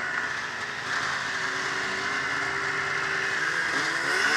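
Ski-Doo MX Z 700 snowmobile's two-stroke engine running steadily, heard from on board the sled. Near the end a second snowmobile comes alongside, and the engine tones waver.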